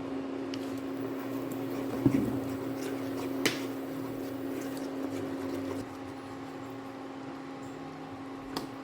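A steady motor hum, with a sharp click about two seconds in and another about a second later. The hum drops slightly and changes tone about six seconds in.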